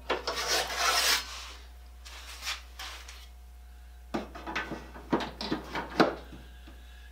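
Scraping and rubbing of a cast-iron saw vise being worked and moved on a wooden bench, in a burst about a second long and then a shorter one. This is followed by a run of rubbing and clicks as a handsaw is drawn from a wall rack, ending in a sharp click.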